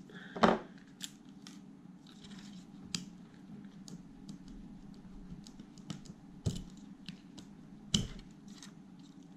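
Side cutters snipping through a plastic cable tie about half a second in, followed by light clicks and taps of plastic connectors and wires being handled on a sealed lead-acid battery pack, with two sharper clicks later on.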